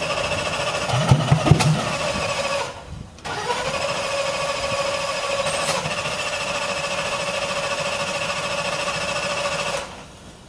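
Starter cranking the 12,500 hp multi-engine, supercharged Black Widow pulling tractor: a steady whine with a few loud pops about a second in. It stops briefly near three seconds, spins back up to the same pitch and runs about six more seconds before cutting off suddenly.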